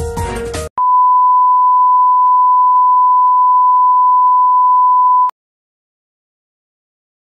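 A single steady test-card beep, the pure tone played over a 'please stand by' colour-bar screen. It starts suddenly, holds unchanged for about four and a half seconds, and cuts off abruptly.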